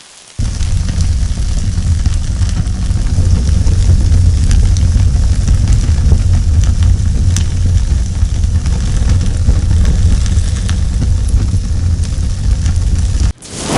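Roaring fire sound effect: a steady, deep rumble of flames with scattered crackles, starting suddenly about half a second in and cutting off abruptly near the end.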